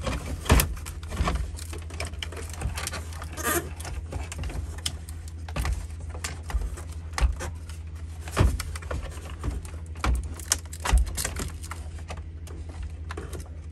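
Irregular plastic clicks, taps and knocks as hands squeeze and wiggle the wiring connector plugs loose from the back of a Ford Bronco instrument cluster, over a steady low hum.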